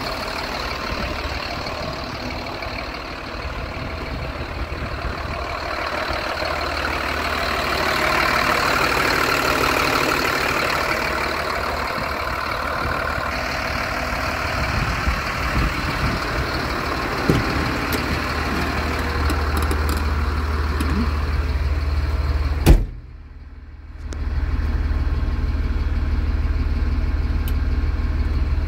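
A 2007 Sterling heavy truck's diesel engine idling steadily. About three-quarters through there is one sharp knock, and the sound drops away briefly for about a second before the idle resumes.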